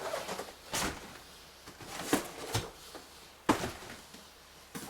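Boxed toys being handled: a few short knocks and rustles as the cardboard boxes are moved and set down, the sharpest about three and a half seconds in.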